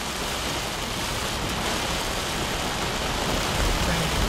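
Steady rush of wind and rain in a thunderstorm, with a deeper low rumble near the end.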